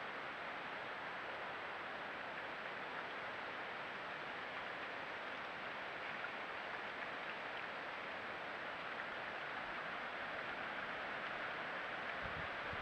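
Steady rustling hiss of wind through the forest foliage, with a few low wind buffets on the microphone near the end.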